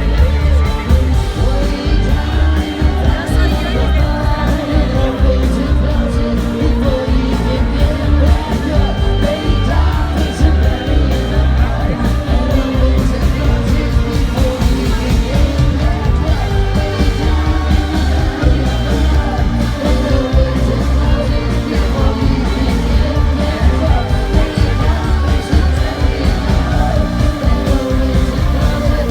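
Live rock band playing loudly, with heavy bass and singing.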